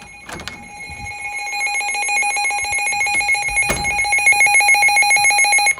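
Emergency alert alarm for a flash flood warning, a fast electronic beeping pulsing many times a second, growing steadily louder and then cutting off suddenly. Two handling knocks come early on and a little past halfway.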